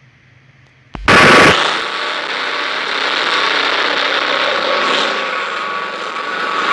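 A loud sudden blast about a second in, then a motorcycle burnout: the engine held at high revs with a rapid rattle while the spinning rear tyre gives a steady squeal.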